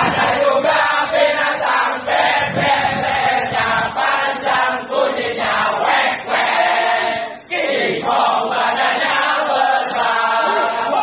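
A large group of people singing a chant-like song together in unison, loud and continuous, with a brief break about seven and a half seconds in.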